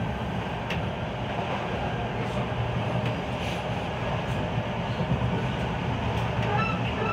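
Class 323 electric multiple unit running at speed, heard from inside the carriage: a steady rumble of wheels on the rails with a low hum underneath.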